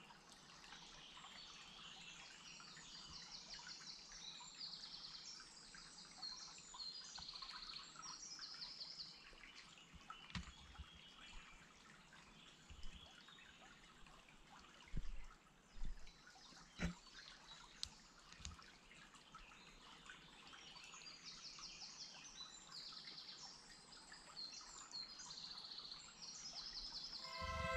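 Several songbirds singing in woodland, with faint water trickling under them. A few soft knocks come about halfway through.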